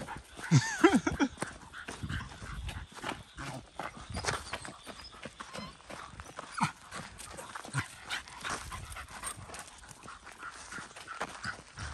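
A dog yelps a few times, short rising-and-falling cries about half a second in. After that comes a steady patter of small clicks and scuffs, typical of steps on the ground during a walk.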